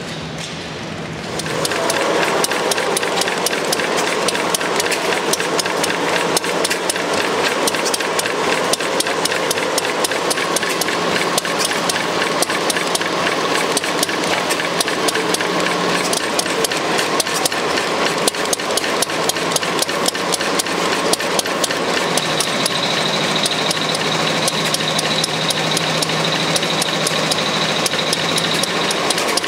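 A Deutz stationary engine running at low speed and belt-driving a generator, with a steady, fast, even clatter of knocks. It comes in about a second and a half in, after a short stretch of hall noise.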